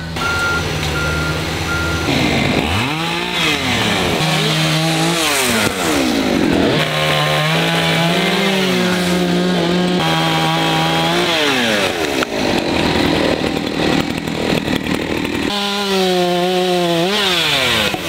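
Chainsaw cutting tree limbs, its engine revving up and dropping back again and again as it bites into the wood and comes off.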